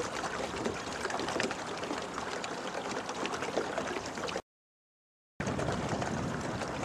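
Water splashing and gurgling, a dense crackling noise that cuts off abruptly about four seconds in. A second of silence follows, then a steadier rushing noise starts.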